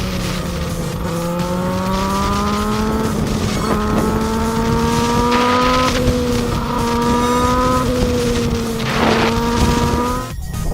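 2005 Kawasaki ZX6R's inline-four engine pulling through the gears, the revs climbing and dropping back several times as it upshifts. The sound cuts off abruptly near the end.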